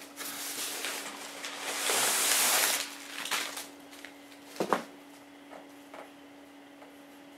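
Hands rummaging through an unboxed shipping box: packing material rustles for about three seconds, then a few clicks and one sharp knock. A faint steady hum runs underneath.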